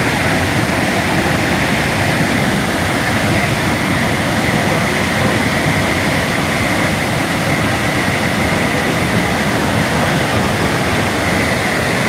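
Steady rushing roar of Purwa Falls, a wide waterfall in heavy flow, heard close to its brink. The noise is dense, loud and even throughout, with no letup.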